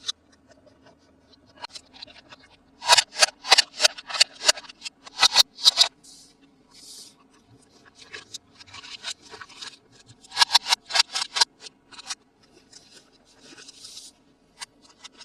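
Toy packaging being opened by hand: two runs of quick, sharp snips and clicks, the first lasting about three seconds and the second about a second, with soft plastic or cardboard rustling between them.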